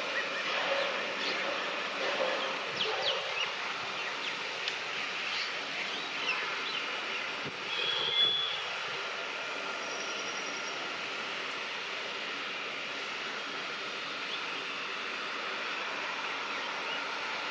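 Distant WAP-7 electric locomotive and its passenger train approaching, heard as a steady rushing noise with scattered faint clicks, and one short high tone about eight seconds in.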